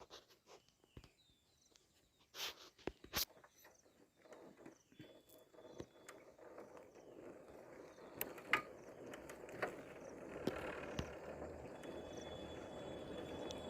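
Faint scattered knocks and clicks, two sharper ones about two and a half and three seconds in, then a steady rustling noise that builds from about eight seconds in.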